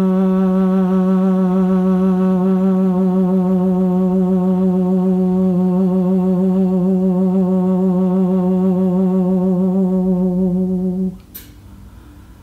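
A woman's voice toning one long, steady sung note on the out-breath, with a slight waver in pitch. It stops about eleven seconds in, followed by a short click.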